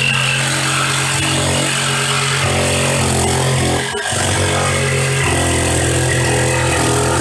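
DeWalt jigsaw running and cutting through a wooden pallet board, a steady motor drone that dips briefly about four seconds in before carrying on.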